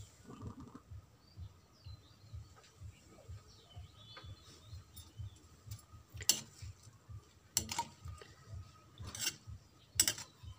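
A metal spoon scrapes and knocks against an aluminium wok a few times in the second half while stirring small fish and green chillies. Before that, faint bird chirps are heard.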